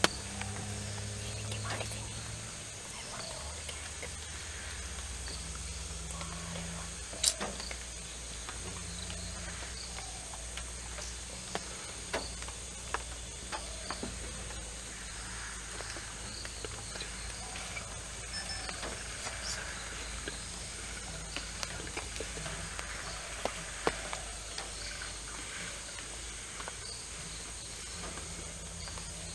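Forest ambience: a steady high insect drone, with scattered sharp snaps and cracks, the loudest about seven seconds in and near the end, over a low hum that comes and goes.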